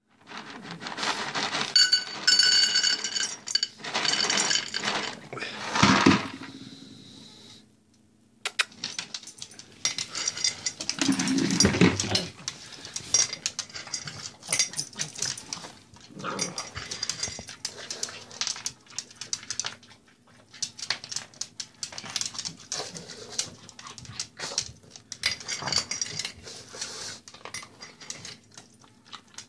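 Dry kibble poured from a paper bag into an enamelled metal dog bowl, rattling and making the bowl ring. After a short pause a pug eats fast from the bowl, with rapid irregular crunching and kibble clicking against the metal, and a louder, deeper burst about eleven seconds in.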